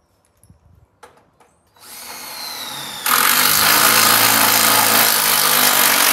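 Cordless drill driving a screw into a steel garage door panel: a few light handling clicks, then the drill starts about two seconds in with a whine falling in pitch and grows louder about a second later, running steadily.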